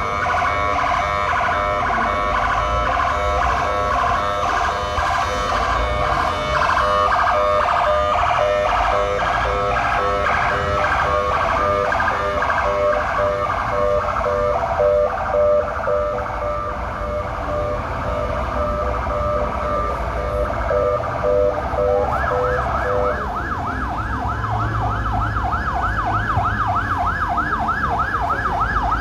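Emergency vehicle sirens sounding, several tones overlapping and pulsing. Late on they change to a fast yelp of about three rising sweeps a second.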